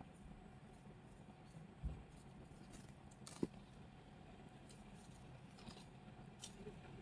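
Very quiet room with a low hum: a soft thump about two seconds in and a sharp click about a second and a half later, then light ticks and rustles as a kitten bats at a toy flower on a shaggy rug.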